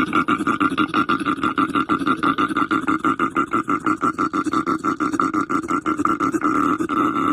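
An animal's call: a rapid, unbroken series of grunting pulses, about eight a second, held at an even pace.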